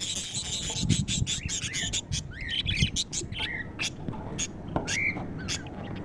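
A group of budgerigars chattering in a cage: rapid sharp chirps and short rising-and-falling calls, busiest in the first few seconds, then thinning out.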